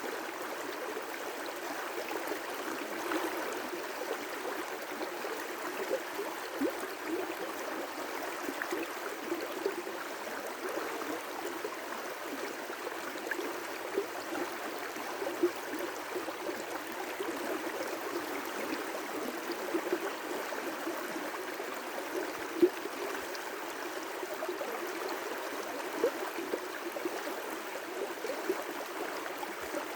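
River rapids: water rushing steadily over rocks, with small irregular splashes and gurgles.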